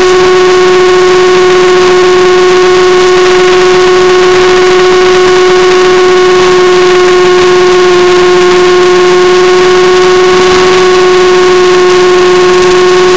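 Electric motor and propeller of a Mini Skywalker RC plane, heard through the onboard FPV camera's microphone: a loud, steady high-pitched whine at constant throttle.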